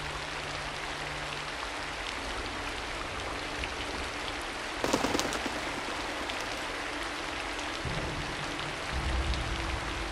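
Steady rain falling, an even hiss of drops, with a brief louder crackling burst about halfway through and a low rumble near the end.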